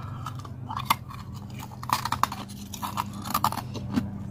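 A person chewing fast food close to the microphone, with many short, irregular crunchy clicks and wet mouth sounds. A steady low hum runs underneath.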